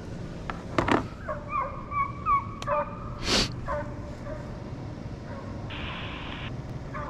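Deer-hunting hounds bawling on a running deer's trail: a string of short, bending cries about one to three seconds in. A brief burst of hiss comes about six seconds in.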